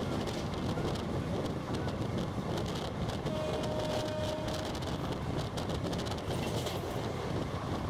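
Express train coach running at speed, heard from its open doorway: a steady rush of wheels on rail and wind. A brief single-note horn sounds about three seconds in.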